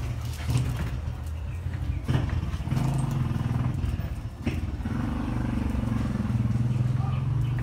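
Two dogs growling low and rough as they play-fight, the growl swelling and easing, with a couple of scuffling knocks about two and four and a half seconds in.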